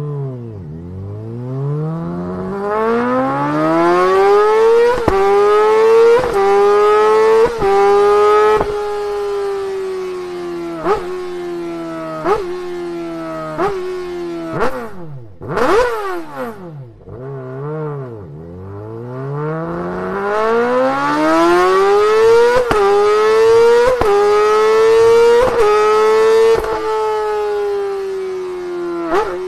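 Honda CBR1000RR-R Fireblade SP inline-four engine revving hard. Its pitch climbs smoothly over several seconds, holds high, then slowly eases off, with a short drop about halfway before it climbs and falls again.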